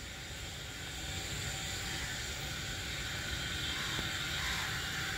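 Steady outdoor background noise: a low rumble with a hiss over it, getting a little louder about a second in.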